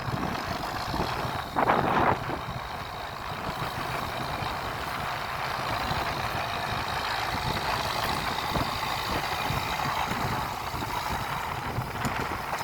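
John Deere 6603 tractor's diesel engine running steadily under ploughing load, with a brief louder burst of noise about two seconds in.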